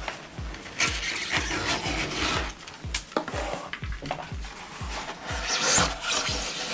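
Utility knife blade scraping and slicing through hardened glue squeeze-out along the foam seams in irregular strokes, over background music with a steady beat.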